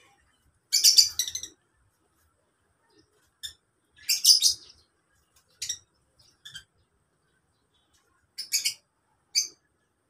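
Lovebirds chirping in an aviary: short clusters of shrill, high-pitched chirps every few seconds, the loudest bunches about a second in and around four seconds in.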